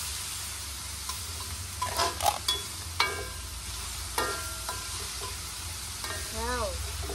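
Chopped vegetables sizzling in a metal wok while a metal spatula stirs and scrapes them, with a few sharp clanks of the spatula against the wok, some ringing briefly, about two, three and four seconds in.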